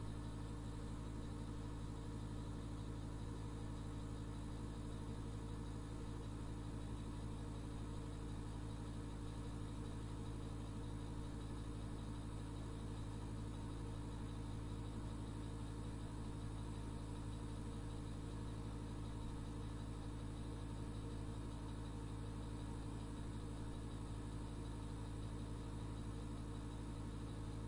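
Bathroom exhaust fan running with a steady hum and a whir of moving air.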